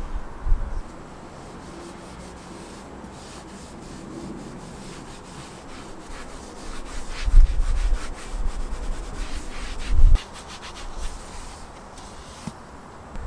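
Rubbing and scrubbing strokes over a surface during car cleaning, with two low bumps about seven and ten seconds in.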